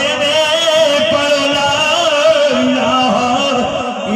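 A man's voice chanting in a drawn-out melodic style through a microphone, with long held, wavering notes that glide up and down in pitch.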